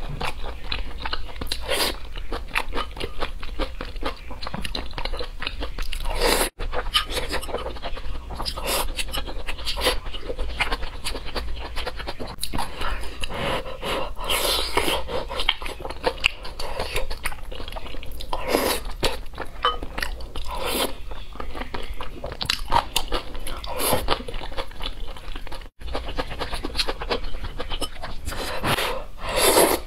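Close-miked chewing and biting of someone eating braised pork belly (hong shao rou) with glass noodles: a continuous run of wet bites and mouth sounds, broken twice by split-second gaps in the sound.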